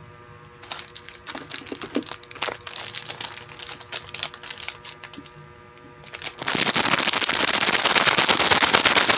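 Clear plastic snack packet crinkling and crackling as it is handled. About six and a half seconds in, a much louder, dense, continuous crackling starts and keeps going.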